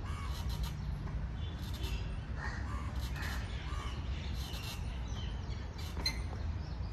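Crows cawing a few times, about two to four seconds in, over a steady low rumble.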